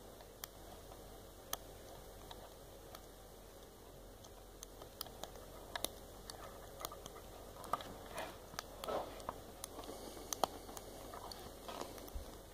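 Faint clicks and light scraping of a lock pick working the pins of a 5-pin brass Sesamee padlock under light tension. The clicks come more often from about five seconds in, with a few short scrapes.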